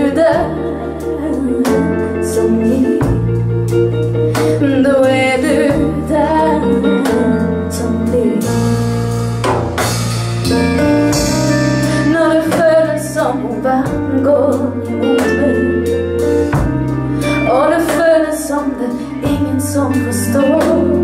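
Live pop band playing with keyboards, electric guitar, bass and drums: held bass notes changing every second or two, a steady drum beat, and a melodic lead line that bends up and down in pitch.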